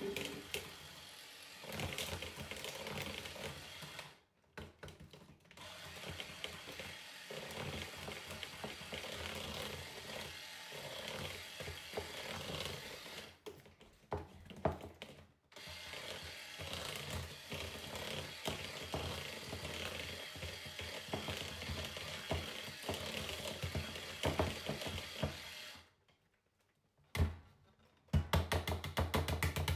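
Braun electric hand mixer running, its beaters whirring through cake batter in a plastic bowl. It pauses briefly twice, stops about four-fifths of the way through, then gives a few short bursts near the end.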